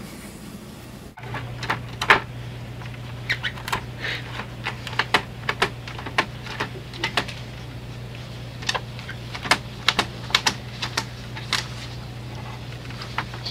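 HP inkjet printer running: a steady low hum with irregular sharp mechanical clicks, starting about a second in.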